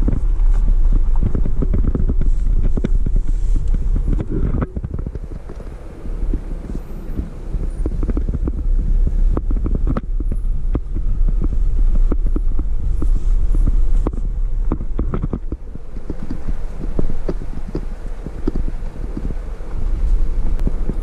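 A vehicle driving slowly over a rough dirt road: a steady low rumble of engine and tyres, with frequent small knocks and rattles from the bumps. It eases off briefly about five seconds in.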